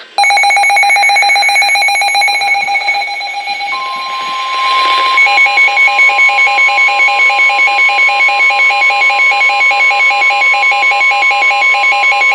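Weather radio alert alarm. A fast, buzzy pulsing electronic tone is joined about four seconds in by NOAA Weather Radio's steady 1050 Hz warning tone. From about five seconds in, a beeping pattern repeats about three times a second over it. The tones signal an incoming severe thunderstorm warning.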